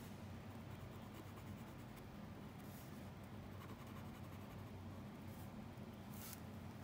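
Faint strokes of a small white drawing stick rubbing on paper: a few soft swishes, the clearest about six seconds in, over a steady low hum.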